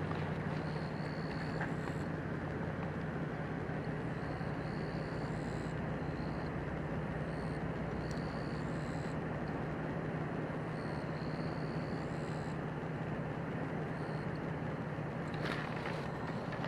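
A steady low engine-like hum under a constant rush of noise, with faint short high-pitched tones coming and going.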